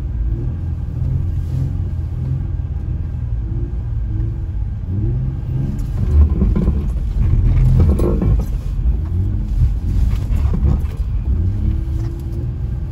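Infiniti G35 coupe's V6 engine heard from inside the cabin while driving on snow, its revs rising and falling. It gets louder and rougher for a few seconds through the middle.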